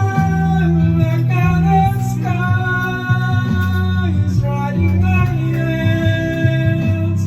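Karaoke backing music playing between sung lines, with held melody notes over a steady bass line.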